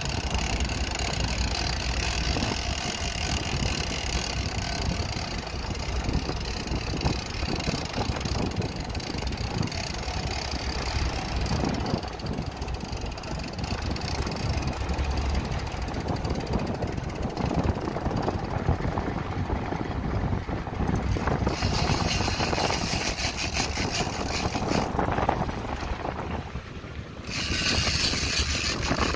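Sportfishing boat's engine running steadily at sea, with wind and water hiss over it. The hiss swells for a few seconds about two-thirds of the way through and again near the end.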